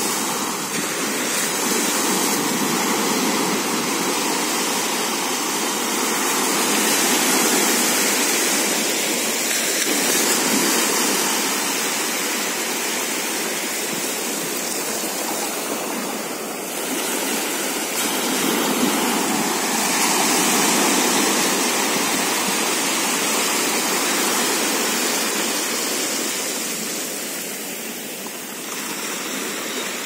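Sea surf: low waves breaking and foamy water washing up and back over a flat sandy beach, a steady rush of water that swells and eases every several seconds.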